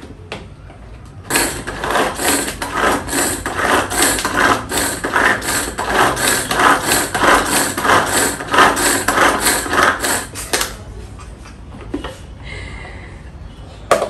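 Manual pull-cord food chopper being pulled over and over, its spinning blades mincing onion, garlic, pepper and parsley in a plastic bowl. The rhythmic run of pulls, roughly three a second, starts about a second in and stops a few seconds before the end.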